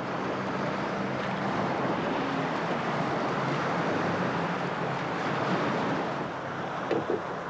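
Steady rushing noise of surf and wind at the shore, with a low steady hum underneath.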